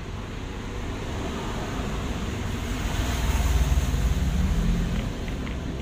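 Low background rumble that swells about three seconds in and eases again, with a few faint clicks near the end.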